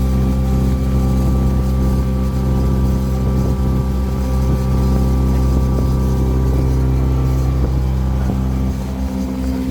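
Cruise boat's engine running steadily: a low, even hum of constant pitch that drops slightly in level near the end.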